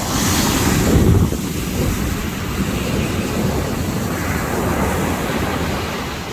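Ocean waves breaking on a beach: a wave crashes about a second in with a loud rushing hiss, then the surf washes on steadily and eases off near the end. Wind buffets the microphone with a low rumble throughout.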